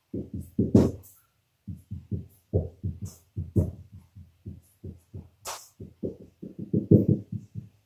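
Dry-erase marker writing on a whiteboard: a quick, irregular string of short strokes and taps as an equation is written out.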